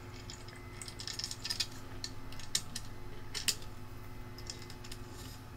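Small clicks and taps of plastic and metal parts handled by hand: an M3 screw and square nut being fitted at the corner of a 3D-printed fan mount, with a few sharper taps about one and a half, two and a half and three and a half seconds in.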